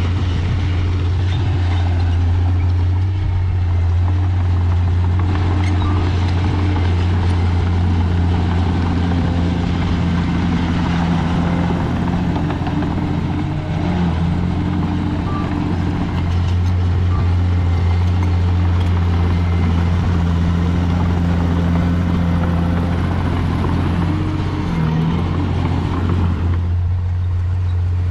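Heavy earthmoving machine's diesel engine running steadily with a deep, constant drone and mechanical noise over it; the higher part of the noise falls away near the end.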